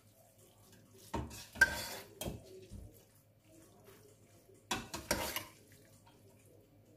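Metal fork and spoon scraping and clinking against a stainless steel pot while cooked noodles are tossed with cheese. It comes in two bursts, one about a second in and another around five seconds in.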